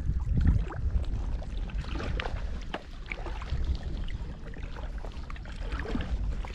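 Water lapping with small irregular splashes, over a low rumble of wind on the microphone.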